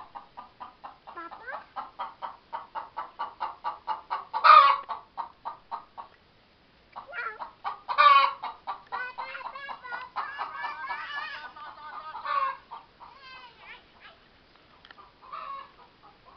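A hen clucking in a fast, even run of about five clucks a second, with a few louder calls breaking in about four and eight seconds in. The clucking stops for about a second near the middle and thins to scattered calls near the end.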